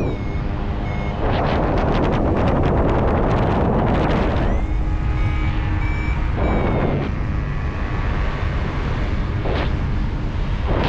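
Strong wind buffeting the microphone, gusting harder for a few seconds early on. Over it, a paragliding variometer beeps in short high tones at times, the sound it makes while climbing in lift.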